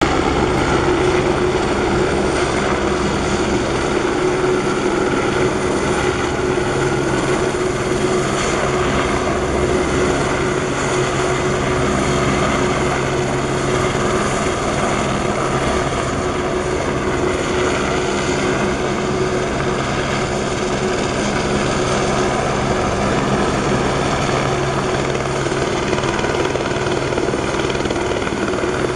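Helibras AS350 Esquilo helicopter hovering, its rotor and single turbine engine running steadily and loudly, with an even hum.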